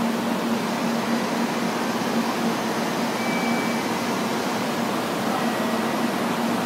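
Steady low hum over an even rushing noise of ventilation machinery, with a faint high tone briefly about three seconds in.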